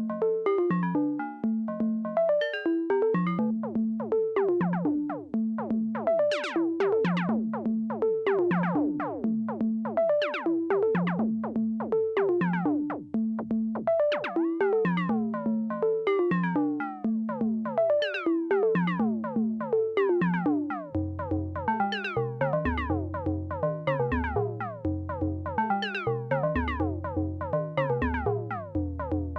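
Behringer SY-1 Syncussion analog drum synthesizer playing a rapid sequenced pattern of short pitched electronic hits, many with a falling pitch sweep, heard dry without effects. About two-thirds of the way in, deeper notes join the pattern.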